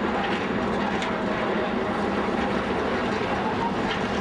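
A train running along the line: a steady, even rumble and rattle of the moving train with a constant low hum.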